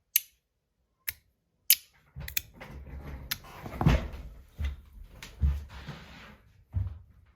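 Osseous Point EDC magnetic fidget slider snapping between its positions: a few sharp clicks at uneven intervals. From about two seconds in, rubbing handling noise with soft thumps runs under further clicks.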